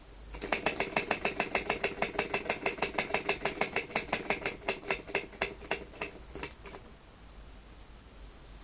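Model vacuum (flame-licker) engine running after its flywheel is flicked by hand: a rapid, even clatter of about seven ticks a second. The ticks slow and stop about seven seconds in as the engine runs down.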